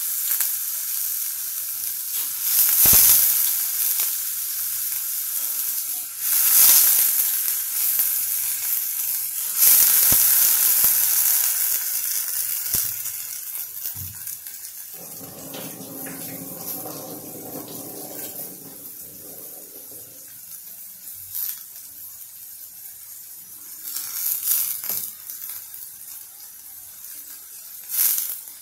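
Sprouted, peeled bitter field beans (val) sizzling in hot oil with onion and green chutney in a steel kadhai. The sizzle is loud and flares up several times in the first ten seconds or so, then settles to a quieter hiss.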